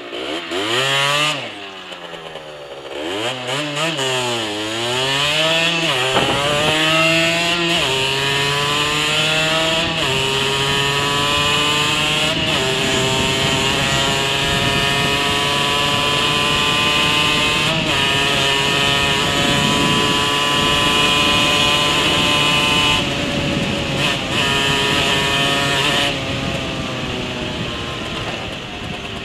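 Two-stroke 50 cc engine of a 2004 Rieju SMX moped on its standard exhaust, accelerating hard through the gears: the pitch climbs and drops back with each shift over the first several seconds, then holds at high revs and slowly rises under full throttle. About three-quarters of the way in it backs off briefly, picks up again, then eases off near the end.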